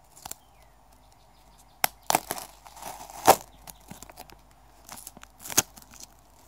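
Paper towel being unwrapped and handled: crinkling and tearing, with a few sharp crackles, the loudest about three seconds in.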